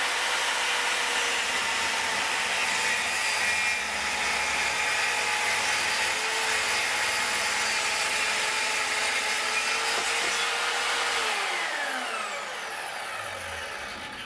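Evolution track saw with a fine-tooth blade running and cutting through a board along its guide rail. About eleven seconds in the trigger is released and the blade spins down, its whine falling in pitch as the sound fades.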